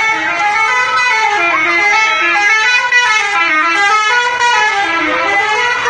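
Bus 'telolet' horn, a multi-tone musical horn, playing a tune of quickly changing notes.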